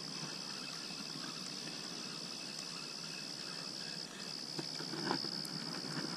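An insect trilling steadily on one high note, with a short break about four seconds in. A few faint knocks around five seconds in.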